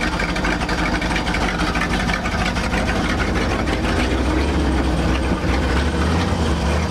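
1968 Ford F600 dump truck's engine idling steadily, its low rumble growing stronger a little past halfway.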